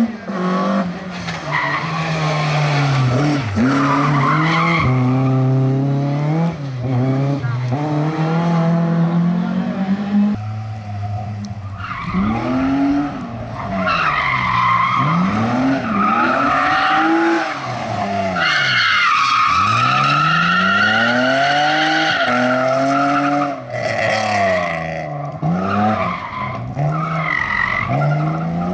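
Rally car engine revving hard and dropping away again and again as the car is thrown through a tight slalom, with tyres squealing through the turns, the longest squeal about two-thirds of the way through.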